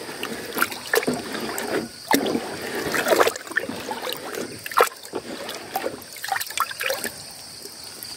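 Water in a basin being stirred and sloshed by hand, with irregular splashes: granular fertilizer being worked into the water so that it dissolves.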